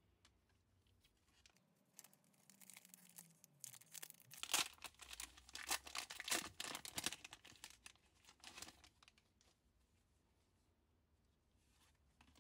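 Foil wrapper of a 1996 Upper Deck trading card pack being torn open and crinkled by hand. A run of crackling tears starts about two seconds in, is loudest in the middle and dies away about three-quarters of the way through.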